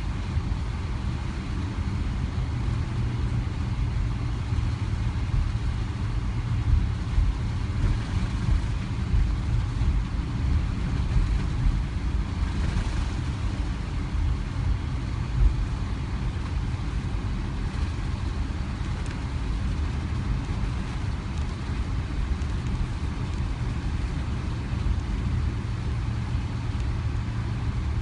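Cabin noise inside a Boeing 777 rolling on the ground: a steady low rumble from the engines and wheels, with a few louder bumps around the middle.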